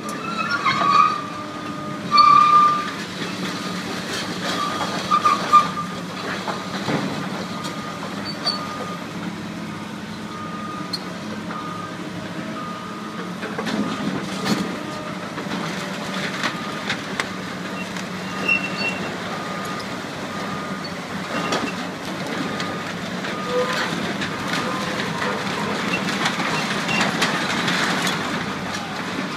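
Heavy demolition machinery working on a metal building: a steady engine rumble under a thin, high, continuous squeal, with scattered knocks and clanks of metal.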